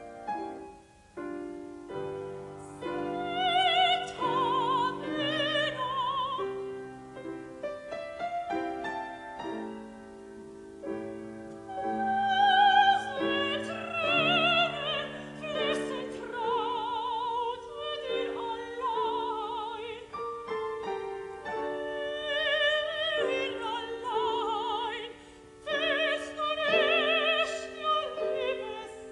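Operatic soprano singing an aria with wide vibrato on long held high notes, accompanied by piano chords.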